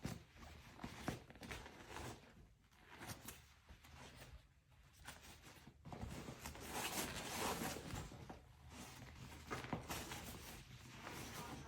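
Faint rustling and handling noises with scattered clicks, growing denser and louder about halfway through.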